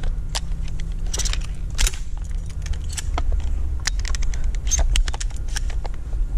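Footsteps crunching through dry leaf litter and wood chips, with gear clinking and rattling at each step, over a steady low rumble.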